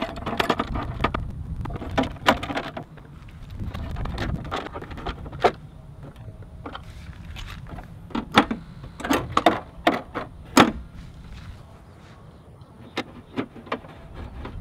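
Scattered sharp clicks and taps of a screwdriver working screws in the plastic legshield and body panels of a Vespa LX scooter, with a quick cluster about eight to ten and a half seconds in, over a low steady rumble.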